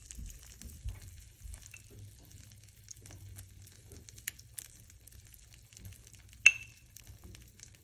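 Salmon fillets sizzling faintly in oil in a hot frying pan while jerk sauce is brushed over them, with scattered small crackles and one sharp clink about six and a half seconds in.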